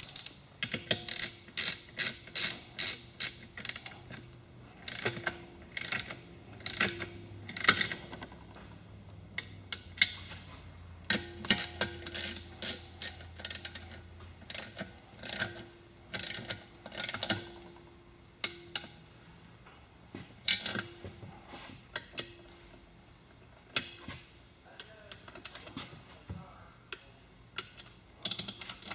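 A socket wrench ratcheting in several quick runs of sharp clicks with pauses between them, as the case nuts of an Aerovee engine's case halves are run down and torqued.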